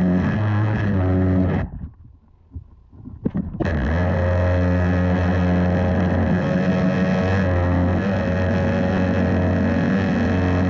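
Pressure-washer jet through a spinning turbo nozzle blasting terracotta roof tiles: a loud, steady buzzing drone with spray hiss. It cuts out shortly before two seconds in as the trigger is released, then starts again about three and a half seconds in and runs steadily.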